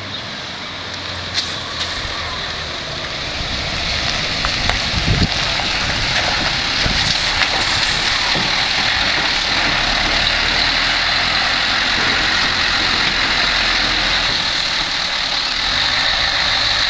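Mercedes-Benz Actros 3355 tractor unit's V8 diesel engine running as the truck, hauling a low-loader with a tracked excavator, draws near at low speed. It grows louder over the first few seconds and then holds steady, with a few short knocks along the way.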